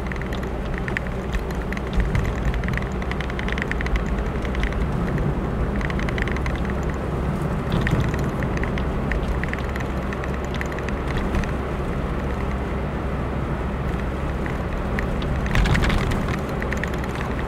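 Steady engine hum and tyre noise of a vehicle driving along a road, heard from its onboard camera, with light irregular ticks and rattles over it. A brief louder rush of noise comes near the end.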